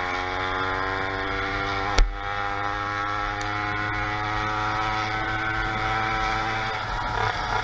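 Motorized bicycle's small engine running at a steady speed under way, its engine note dropping away near the end. A single sharp knock sounds about two seconds in.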